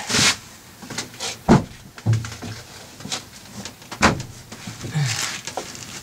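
Handling noise as a fabric-covered seat cushion is pushed and pressed into place over a compartment: a few sharp knocks, the clearest about a second and a half in and again about four seconds in, with scraping and rustling between them.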